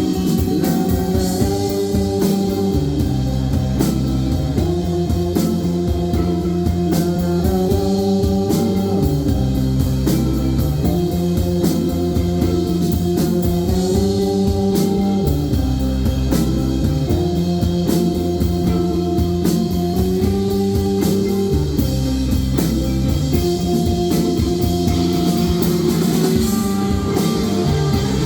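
Rock band playing an instrumental passage of a song: guitars holding chords over a steady drum kit beat, with no singing.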